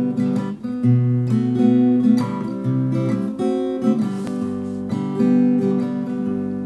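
Acoustic guitar strumming and picking a run of chords.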